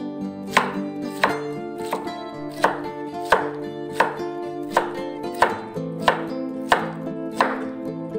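Kitchen knife chopping through pineapple onto a wooden cutting board: a steady run of about eleven sharp chops, roughly one and a half a second, over plucked-string background music.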